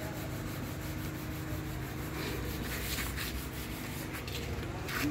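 Rubbing and scraping sounds over a steady low hum, with a few scratchy strokes in the middle.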